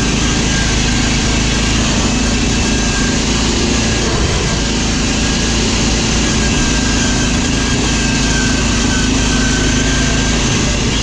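Riding lawn mower engine running steadily at an unchanging pitch while the mower is driven along.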